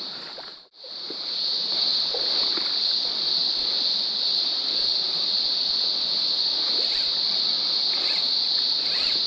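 A steady, high-pitched chorus of insects over the running trickle of a shallow, pebbly stream. The sound cuts out for a moment under a second in, then carries on unchanged.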